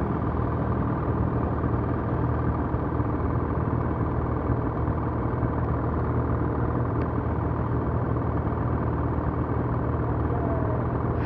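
Ski-Doo Gen 4 850 snowmobile's two-stroke engine running at a steady, even speed as a constant drone.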